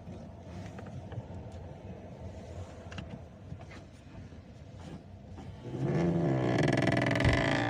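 Hyundai i20 heating/cooling blend-door actuator motor working against its gears: faint whirring and ticking at first, then from about six seconds in a loud groaning gear noise with a wavering pitch. The noise is a sign of a dry, binding actuator that lubrication is expected to cure.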